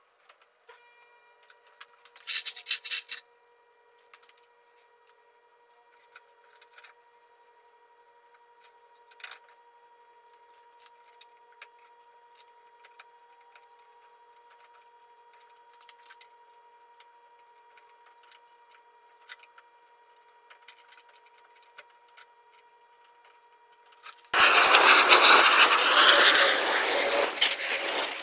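Faint clicks and knocks of hand work on a bolted steel winch mount, with a short loud rattle about two seconds in. About 24 seconds in, a power saw starts cutting loudly through a sheet of Skatelite, the phenolic-resin-and-fiber surface of a skateboard ramp.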